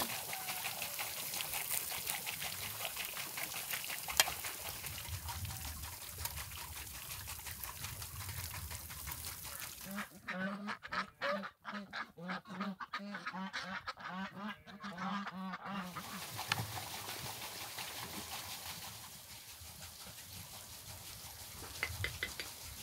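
A flock of white domestic ducks quacking in a quick run of repeated calls for about six seconds, starting about ten seconds in. Before and after the ducks there is an even hiss with occasional clicks.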